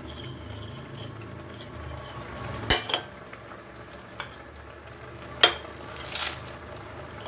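Kitchen utensil sounds at a non-stick kadai holding coriander seeds and peppercorns in oil: two sharp knocks a few seconds apart over a low steady hum. Near the end dry red chillies are tipped into the pan with a brief rustle.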